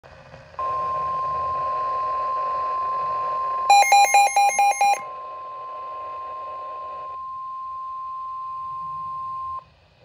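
Midland weather alert radio sounding the NOAA Weather Radio 1050 Hz warning alarm tone, a steady single tone that signals a warning is about to be read. About four seconds in, a burst of quick, shrill beeps lasting about a second joins it. The tone cuts off near the end.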